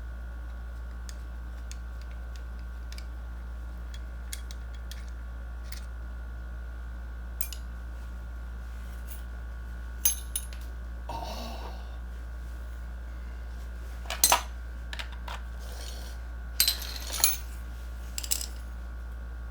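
Small metal screws and hand tools clinking and clicking: scattered faint ticks, then several louder sharp metallic clinks in the second half, with a short scrape between them, over a steady low hum.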